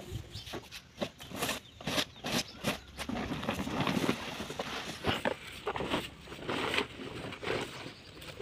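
Plastic tarpaulin rustling and crackling in irregular bursts as it is handled and spread out on the ground.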